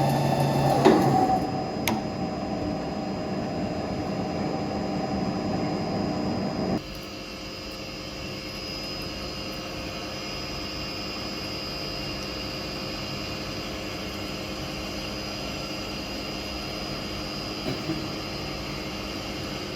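CNC lathe running in a workshop: a steady machine hum with a high whine. There is a sharp knock about a second in. About seven seconds in, the deeper part of the noise cuts off abruptly, leaving a quieter steady hum and whine.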